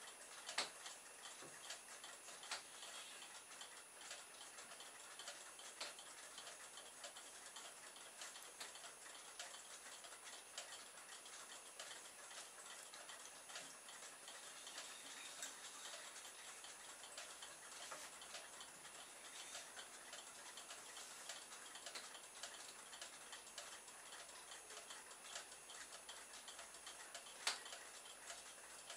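Near-silent room tone with faint, irregular clicks and ticks, two sharper ones about half a second in and near the end, over a faint steady high-pitched whine.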